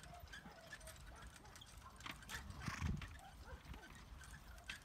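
Faint hoofbeats of a pair of horses drawing a four-wheeled carriage over grass, with a louder thud a little under three seconds in.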